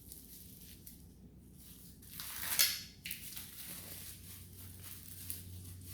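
Packing material crumpled and rustled by hand while parts are unwrapped, with one louder crinkling rustle about two and a half seconds in.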